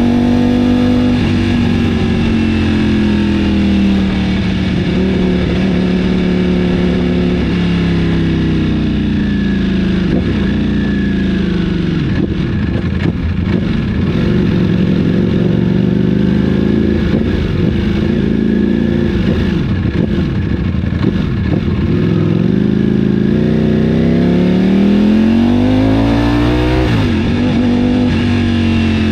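Ducati Panigale V4's Desmosedici Stradale V4 engine running, its pitch falling over the first few seconds, holding fairly low, then climbing again near the end before dropping back.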